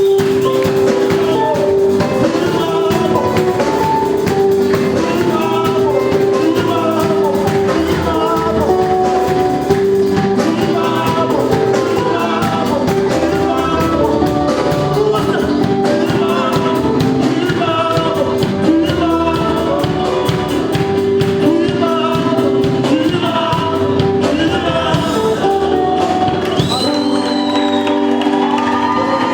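Live gospel band music with singing: a long held keyboard chord under moving vocal lines and a steady drum beat, with a high vocal run near the end.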